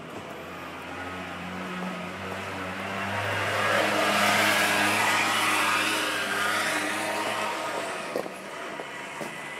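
A motor vehicle passing by: its noise swells to a peak about halfway through and fades away, over a steady low engine hum.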